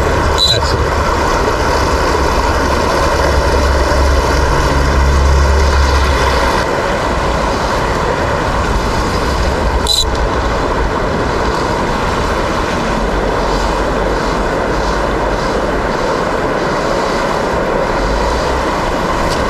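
Small stream rushing steadily over rocks. A low rumble runs under it for the first six seconds or so, then stops. Two short clicks come, one just after the start and one about halfway.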